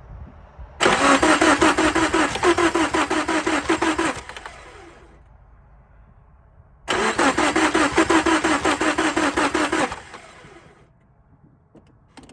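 2002 Subaru Impreza RS 2.5's 2.5-litre flat-four being cranked by the starter twice, each attempt about three seconds of quick, even cranking, without the engine catching. The car cranks but won't start despite a new battery, plugs and crankshaft sensor, and the owner, smelling fuel, suspects it is flooding.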